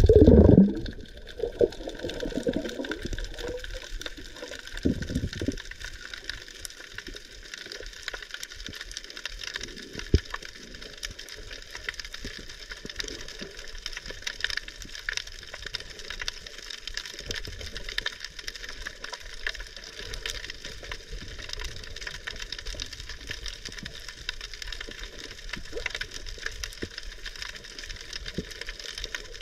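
Underwater sound picked up by a submerged camera: a loud rush of water as it goes under in the first second, then a steady dense crackling hiss, with a few louder knocks and a sharp click about ten seconds in.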